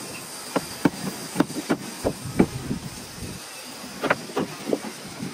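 A run of irregular, sharp knocks and taps, about ten in all, some in quick pairs with a short pause midway, over a steady faint hiss.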